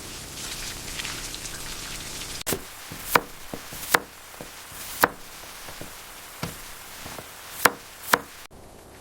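Steady rain hiss, then a knife chopping on a cutting board: a string of sharp, irregular knocks, five of them loud.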